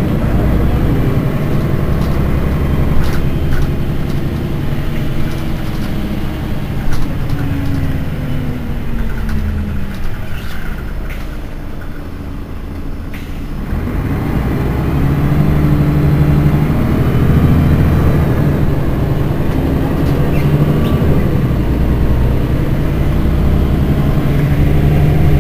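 Mercedes-Benz Citaro city bus engine running: its pitch falls as the bus slows, it sinks to a quieter low idle for a few seconds around the middle, then its pitch climbs again as the bus pulls away and accelerates. A few light knocks sound over it.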